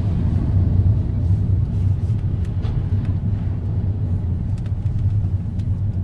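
Steady low road and engine rumble heard inside a moving car's cabin, with a few faint knocks.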